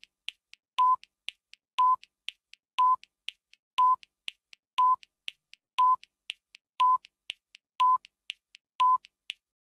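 Ten-second countdown timer sound effect: a short electronic beep once a second, ten in all, with fainter clicky ticks between the beeps, as the timer counts down.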